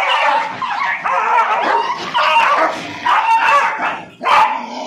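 Several excited dogs yipping, whining and barking over and over as they jump up begging for food held out to them.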